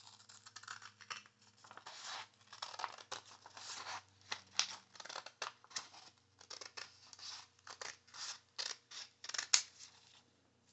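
Scissors cutting a sheet of printer paper into strips along its folds: an uneven run of many quick snips as the blades close through the paper.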